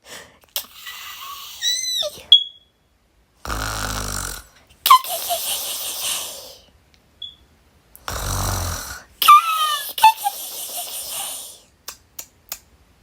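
A person imitating snoring. A breathy sigh comes first, then two snores, each a short rasping inhale followed by a longer breathy exhale with a faint squeaky whistle.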